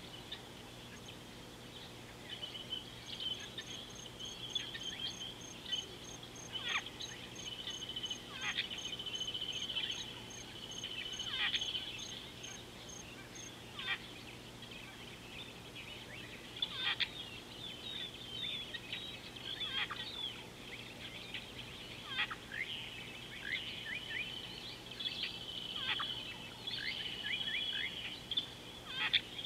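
Several wild birds calling and chattering at once, with trills and repeated sharp downward-sweeping calls. For the first half a thin high ticking repeats about three times a second.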